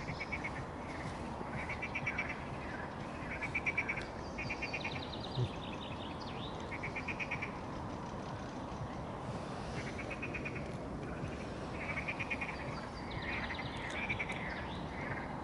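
Frogs calling in chorus: a series of short pulsed trills, each under a second long, repeating irregularly with several voices overlapping. There is one short low knock about five seconds in.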